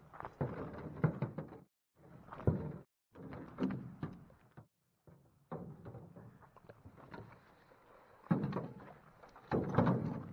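Irregular knocks and thuds with rustling, from an aluminum canoe and gear being handled on a portage, heard in several short pieces broken by abrupt silent gaps.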